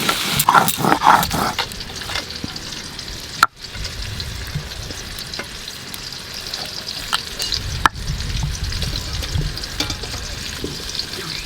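Food sizzling in hot oil in a pan while it is stirred, a steady crackling hiss. A sharp click comes about a third of the way in and another about two-thirds in.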